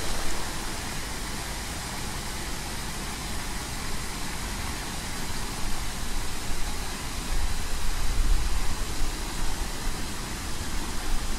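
Steady rushing noise of falling water, with a deep rumble that swells and fades about two thirds of the way through.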